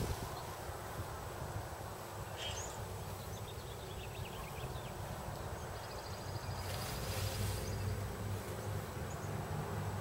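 Steady background ambience: a low hum under a soft hiss, with a few faint high chirps about two to four seconds in.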